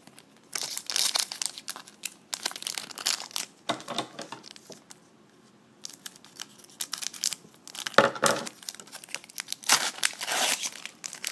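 Trading-card pack wrappers crinkling and rustling in irregular bursts as a pack is handled and opened.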